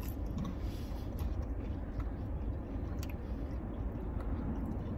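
Someone quietly chewing french fries, with a few faint small clicks, over a steady low rumble inside a car cabin.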